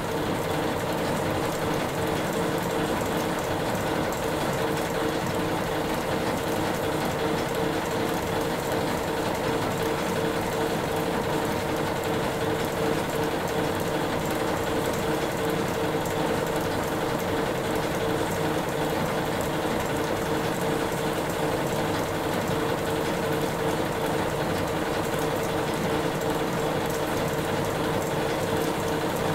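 Steam engine running steadily, its rods, cranks and valve gear making a continuous even mechanical clatter, with a steady whine underneath.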